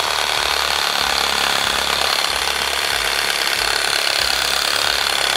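Milwaukee cordless Hackzall reciprocating saw running steadily as its blade saws through an alder limb about two inches thick. The cutting is slow: the limb is too big for the saw and the blade seems to get bound up.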